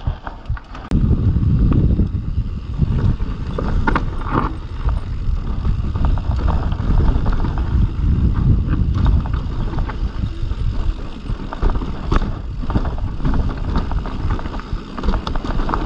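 Wind rumbling on the microphone of a camera on a mountain bike descending a rocky forest trail, mixed with tyre noise and scattered knocks and rattles from the bike over rocks and roots. The rumble comes in about a second in.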